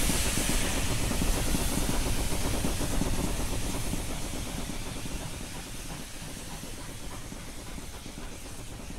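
Steam locomotive sound effect: a steady hiss of steam over a low rumble. It grows quieter from about three seconds in and holds at a lower level after about six seconds.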